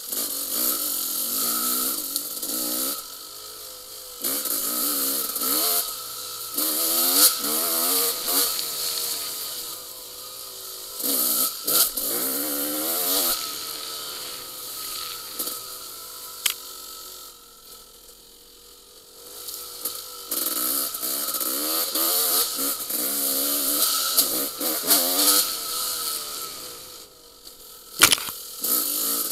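Yamaha YZ250 single-cylinder two-stroke dirt bike engine revving up and down over and over as the throttle is worked, with quieter spells off the throttle, heard through a helmet-mounted camera with wind on the microphone. A sharp knock near the end.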